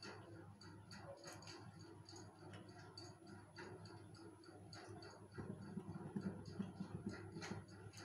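Faint, regular ticking, about two ticks a second, over a low steady hum, with a few soft knocks.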